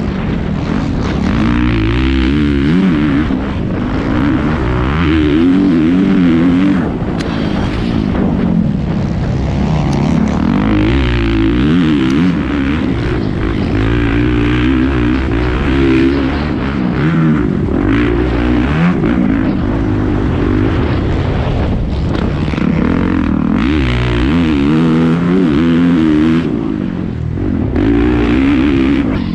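Kawasaki off-road race dirt bike's engine heard close from the onboard camera, revving hard and falling off over and over as the rider works the throttle and gears over rough dirt-track hills, with wind and rough-ground noise mixed in.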